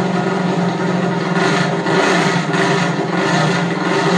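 Pro Stock drag motorcycle engine running loudly on its stand, revved in short repeated pulses about every half second from about a second in.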